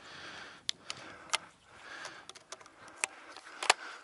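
Scattered sharp clicks and rustling from a shotgun and camera being handled, the loudest click about three and a half seconds in, with breathing between.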